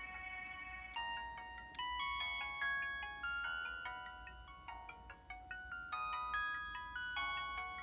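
Samsung Anycall SCH-W200 feature phone playing a built-in ringtone: a held chord fades out, then about a second in a quick melody of struck, bell-like mallet notes begins.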